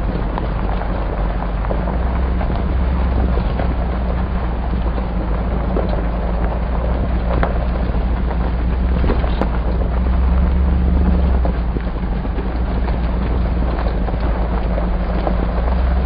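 Hummer's engine and drivetrain heard from inside the cabin while driving slowly over a bumpy dirt and gravel road: a steady low engine drone with scattered knocks and rattles from the bumps, swelling a little twice.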